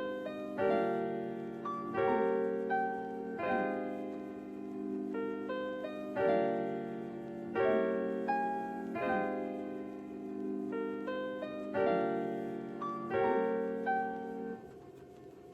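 Piano music: chords struck about every second and a half, stopping about a second before the end.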